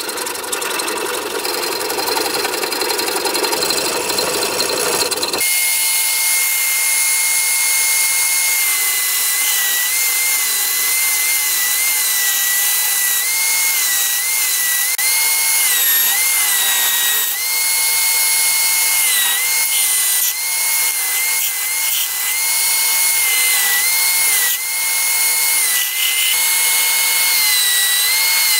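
Rough hand scraping on the wooden knife handle clamped in a vise for about five seconds. It is then cut off by a bench belt sander running with a high whine, its pitch dipping briefly each time the wooden handle is pressed against the belt.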